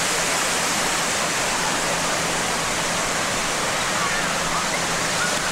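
Ocean surf breaking and washing up on a sandy beach: a steady, unbroken wash of noise.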